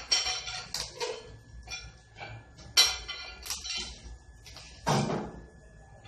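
Handling noises while a microwave oven and its parts are unpacked: a string of short clinks, knocks and rustles, with a sharp knock about three seconds in and a duller thud about five seconds in.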